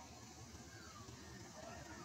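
Quiet outdoor ambience: a low steady rumble with a few faint, short falling chirps.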